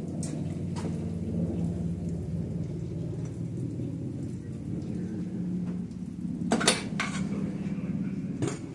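A few sharp metal knocks and clanks from tools and parts being worked on a Mazda 13B rotary engine during teardown, the loudest two about six and a half seconds in and another near the end, over a steady low hum.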